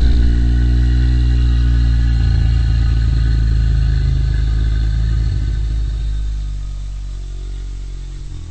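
Giant's roar sound effect: one long, deep, growling roar that holds steady, then fades away over the last couple of seconds.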